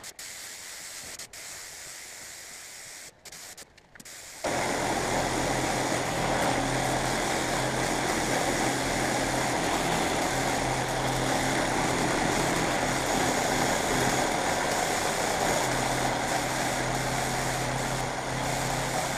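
Steady hiss of compressed air through a gravity-feed spray gun laying down clear coat, starting about four seconds in, with a low steady hum underneath.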